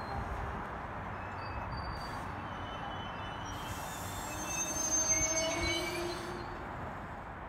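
Amtrak passenger train's coaches rolling past on the track with a steady rumble. About halfway through, the wheels squeal with several thin whining tones, which are the loudest part, before settling back to the rumble.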